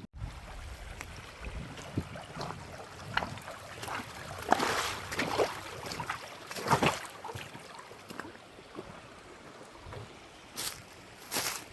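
Water trickling and splashing, with irregular splashes and knocks that come thickest about halfway through.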